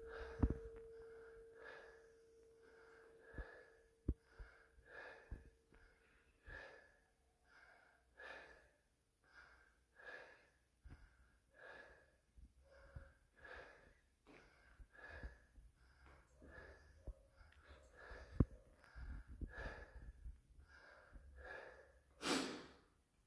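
Short, rhythmic, strained breaths, about one every three-quarters of a second, from a man holding a 732.5 kg barbell on his shoulders. A faint ringing tone dies away over the first several seconds, and a louder rush of noise comes near the end.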